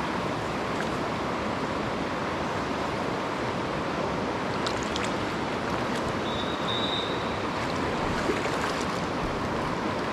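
Steady rush of flowing river water, with a few light taps a little before the middle and a short high note just after it.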